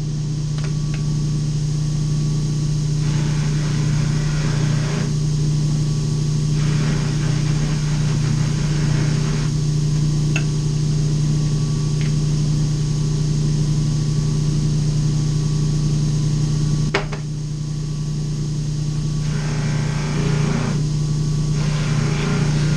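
A bench sanding or polishing machine's electric motor running steadily, with several stretches of hissing noise where the knife's pinecone-and-epoxy handle is pressed against it for shaping and polishing. A single sharp click about two-thirds of the way through.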